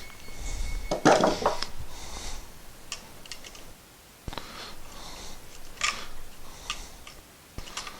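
Small metal clicks and scrapes of a screwdriver working the terminal screws on a three-way wall switch, tightening them snug on the wires. The loudest scraping comes about a second in, with scattered clicks after.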